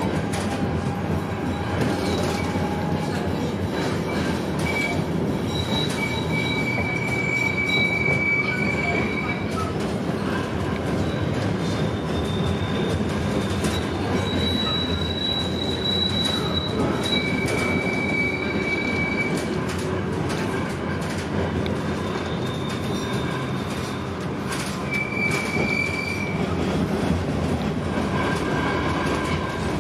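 Tram running on street rails, heard from inside the car: a steady rumble of wheels on the track, with high-pitched wheel squeal coming and going several times as it rounds curves.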